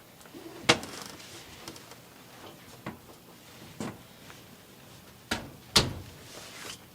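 Several separate sharp knocks and clicks from a clothes dryer being handled. The loudest comes about a second in and another near the end.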